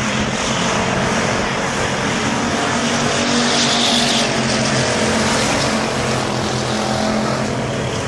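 Several dirt-track stock cars racing, their engines running hard together, with one car passing close by about halfway through.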